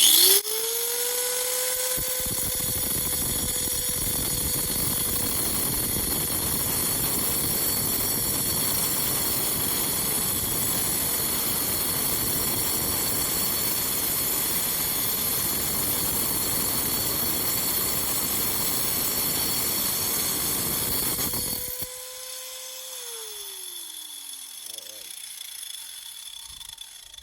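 Angle grinder spinning up and cutting into a quartz geode, a steady motor whine under a loud, even grinding noise for about twenty seconds. Near the end the disc comes off the stone and the motor winds down, its pitch falling.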